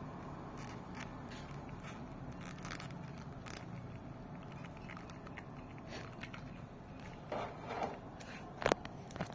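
Hands handling a plastic toy figure and its packaging: scattered small clicks and scrapes over a steady low hum, with a few louder, sharper clicks near the end.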